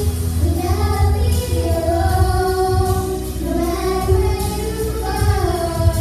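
Young girls singing together into microphones over musical accompaniment. They hold long notes that slide up and down in pitch.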